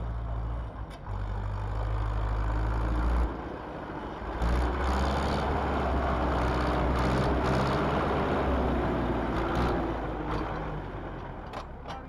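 Zetor tractor diesel engines running hard. About three seconds in the sound breaks off, and from about four seconds a Zetor 8011's four-cylinder diesel runs loud and steady at high revs, easing off near the end.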